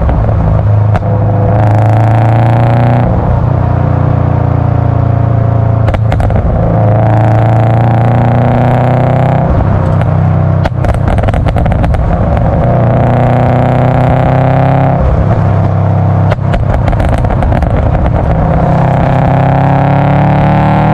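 Tuned Subaru Impreza WRX's turbocharged EJ205 flat-four, about 400 hp, revving up four times in pulls of a couple of seconds. Between the pulls the exhaust crackles and pops.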